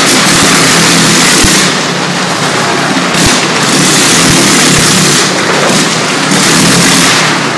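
A motorcycle's engine running hard as it rides around the vertical wooden wall of a wall of death, loud throughout, its level swelling and dipping.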